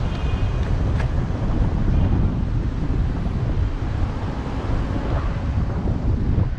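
Wind buffeting the microphone of a camera riding on a moving bicycle: a steady low rumble, with a short sharp click about a second in.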